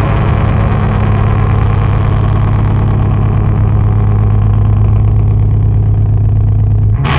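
Heavy, distorted music: a low droning note holds under a dense, churning wall of sound whose top end gradually darkens. A new section breaks in abruptly near the end.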